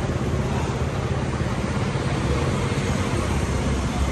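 Steady roadside traffic noise, with a motor vehicle engine running close by.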